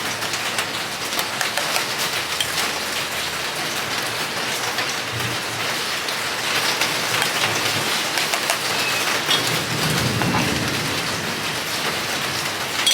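Steady heavy rain falling, a dense even hiss with many small drop impacts. A low rumble swells briefly about ten seconds in.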